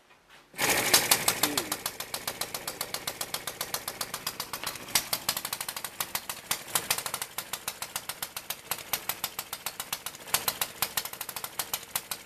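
Homemade single-cylinder four-stroke model gasoline engine (the 1936 Popular Mechanics 'Midget', 1¼-inch bore) catching about half a second after a hand flip of the flywheel, then running at a fast, even beat of sharp exhaust pops, loudest in the first second.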